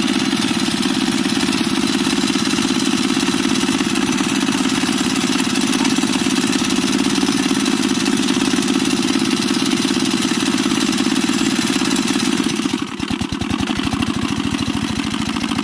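Walk-behind tractor's small single-cylinder engine running steadily. About three seconds before the end its sound drops a little, and its separate firing beats become easier to pick out.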